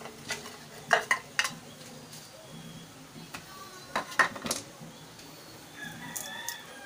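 Sharp metallic clinks and knocks in small clusters from tools and parts being handled on a belt-driven air compressor, three about a second in and several more about four seconds in. Near the end a rooster crows faintly.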